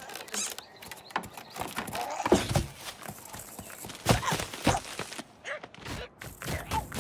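Cartoon slapstick sound effects: a run of irregular knocks and quick patter like footsteps, with a few short pitched squeaks and grunts from the characters.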